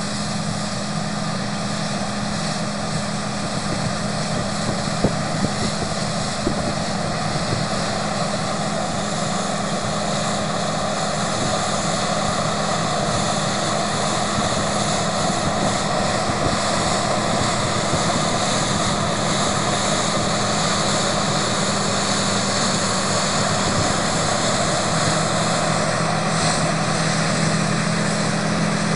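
John Deere 9680 WTS combine harvester running at work while cutting wheat: the steady drone of its diesel engine and threshing machinery, growing gradually louder as the combine draws closer.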